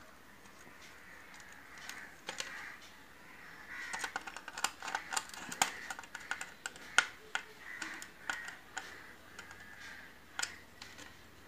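Faint, scattered light clicks and taps of hands working a plastic switch board and its wires, with a screwdriver at the switch terminals. The clicks come thickest in the middle.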